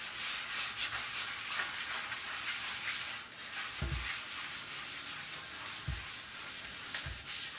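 A sponge pad scrubbing coarse sea salt over a wet end-grain wooden cutting board: a steady gritty rubbing in repeated strokes. A few short dull thumps come in the second half.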